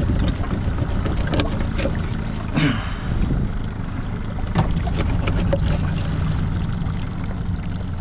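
A boat's motor running with a steady low hum, wind buffeting the microphone, and a few short knocks and clicks.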